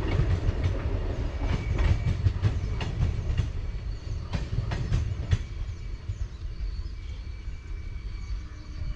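Passenger coach wheels clattering over the rails as the tail of the train moves away. The clicks come irregularly and thin out, and the rumble fades over the first five seconds or so.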